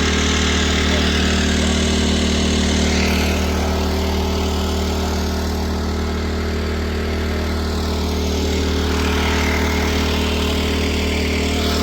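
A large engine of harvest machinery running steadily at a constant speed, a low hum with a hiss of machine noise over it.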